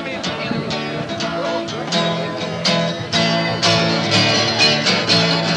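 Acoustic guitars strumming a steady country-style rhythm, an instrumental lead-in with no singing yet.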